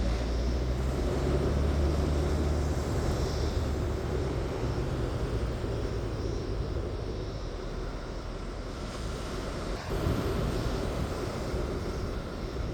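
Low, steady engine-like rumble with a hum, loudest in the first few seconds and then slowly fading.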